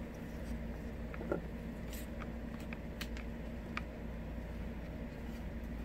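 Steady low hum of a room air conditioner running, with a few faint ticks and rustles from hands wrapping a fabric strip around millinery wire.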